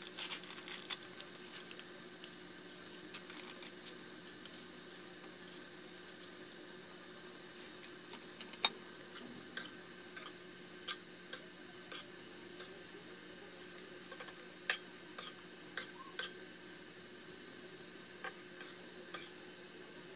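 A spatula stirring chicken adobo in an aluminium wok, knocking and scraping against the pan in sharp single clinks about once a second through the second half. A rapid crackle in the first couple of seconds, and a steady low hum underneath.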